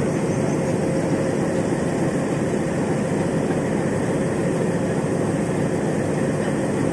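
Diesel locomotive engine running with a steady, unbroken drone and a faint held tone, as it stands close to a coach for coupling.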